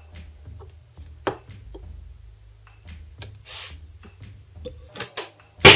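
Small handling clicks and a short rub as a centre punch is set on a steel bracket, then near the end one sharp, loud hammer blow on the punch to mark the hole centre.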